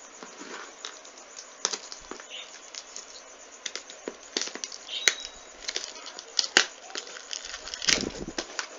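Cardboard box and its packaging being handled and opened by hand: an irregular run of crackles, taps and clicks, with a few sharper knocks in the second half.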